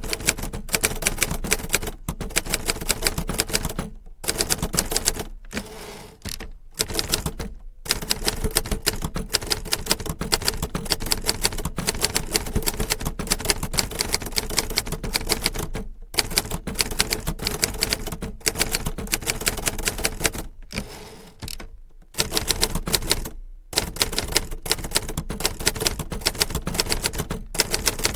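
Typewriter keys being struck in rapid, continuous typing, broken by several brief pauses of under a second to about a second and a half.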